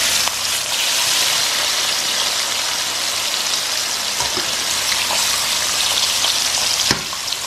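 Floured chicken breasts shallow-frying in hot oil, a steady sizzle. A short knock sounds near the end.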